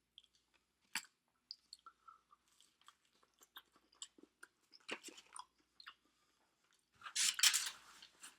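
Close-miked chewing of food, with small wet mouth clicks, and a louder noisy burst of sound near the end.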